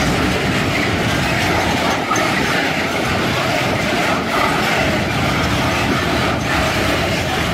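Freight train wagons rolling past close by: a steady, loud rumble and rattle of steel wheels on the rails, with occasional clacks as wheels cross rail joints.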